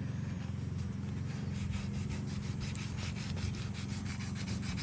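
Sandpaper being rubbed over a car's wheel rim to strip its paint, in quick rhythmic strokes that grow distinct after the first second or so, over a steady low hum.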